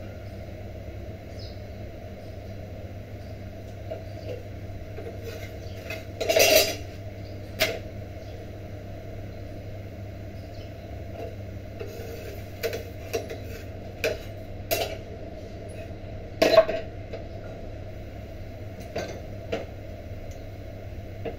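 Gas stove burner running with a steady low rumble. Several sharp metal clinks and knocks of utensils against the iron tawa cut through it as the bhakri is handled; the loudest come about six and a half and sixteen and a half seconds in.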